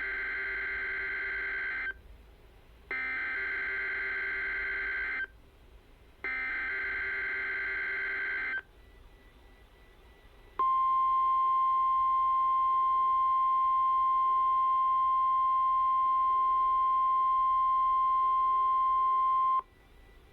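EAS/SAME alert header sent three times: three raspy two-tone digital data bursts of about two seconds each, a second apart. Then, about ten seconds in, the NOAA Weather Radio 1050 Hz warning alarm tone starts, a steady single tone held about nine seconds that cuts off suddenly, marking the Required Weekly Test. Heard through a RadioShack 12-889 weather radio's speaker.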